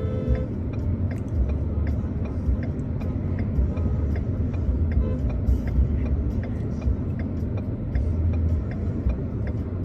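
Inside a car's cabin: steady engine and road rumble, with sharp ticks about two a second and faint music playing.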